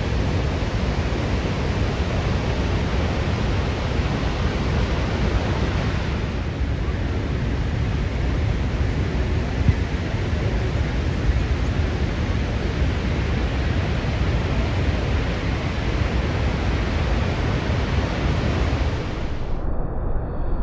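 Steady roar of Niagara Falls: tons of water pounding down at the Horseshoe Falls and the churning river below, a deep, continuous rush of noise. The upper hiss drops away abruptly shortly before the end.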